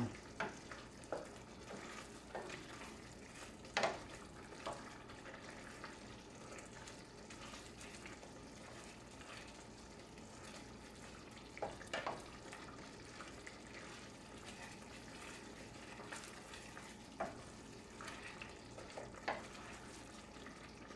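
Stew simmering in a stainless steel pot as it cooks down, bubbling faintly while a wooden spoon stirs it through. A few short knocks of the spoon against the pot stand out, around 4, 12, 17 and 19 seconds in.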